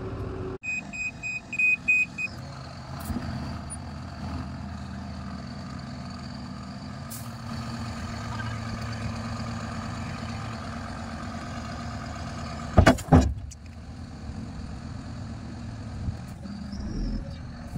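Excavator's diesel engine running steadily, with a rapid high-pitched beeping for about the first two seconds and two loud knocks about thirteen seconds in.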